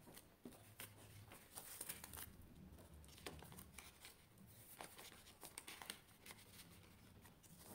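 Faint rustling and crinkling of paper banknotes and plastic cash-envelope sleeves being handled, with scattered soft clicks.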